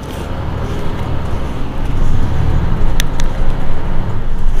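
Mercedes-Benz Citaro C2 city bus's OM936 six-cylinder diesel engine running while the bus stands at a stop, a low rumble that grows louder over the first two seconds and then holds. Two sharp clicks come about three seconds in.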